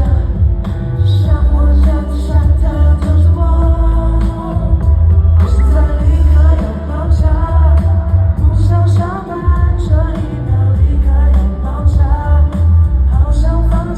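Mandopop song with group singing over a heavy, pounding bass beat, played loud through a live-event sound system.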